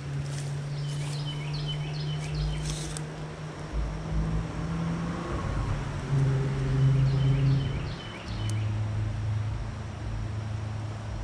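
Outdoor ambience: a steady low engine-like hum that shifts pitch a few times. A bird sings two quick runs of repeated chirps, one near the start and another about six seconds in.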